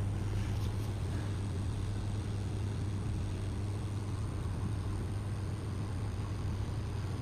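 Hot-air rework station blowing steadily: a low hum under an even hiss of air, as it heats an LED lamp bead to solder it onto its pads.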